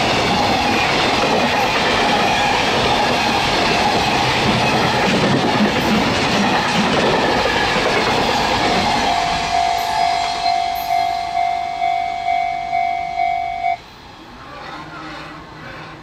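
Container freight train passing close by at speed, a steady rumble with wheel clatter, under the electronic ding of a Japanese level crossing alarm pulsing about twice a second. Once the last wagons have gone the alarm rings on alone, then cuts off suddenly about three-quarters of the way through.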